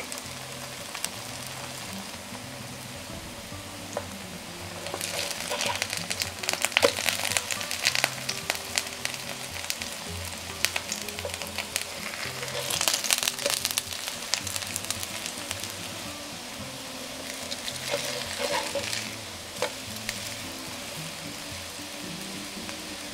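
Grated-potato pancakes frying in shallow oil in a pan, a steady sizzle that swells into louder crackling about five seconds in, again around thirteen seconds, and briefly near eighteen seconds. Soft background music plays underneath.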